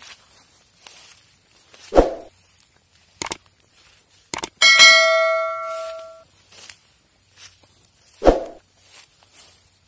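A single bell-like metallic ring, struck once about halfway through and fading over about a second and a half, with two dull thumps and a few sharp clicks around it.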